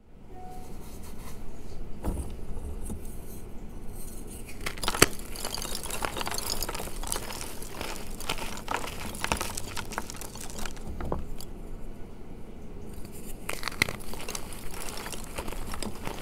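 Bare hands crushing and crumbling reformed gym chalk blocks, giving continuous crumbly crunching with many small sharp clicks, the loudest snap about five seconds in.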